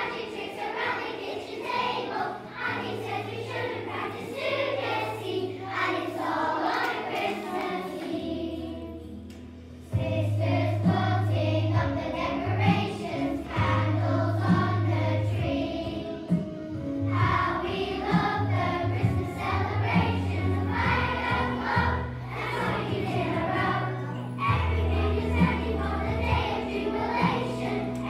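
A choir of primary-school children singing a song together over instrumental accompaniment. The music dips briefly and comes back louder and fuller about ten seconds in.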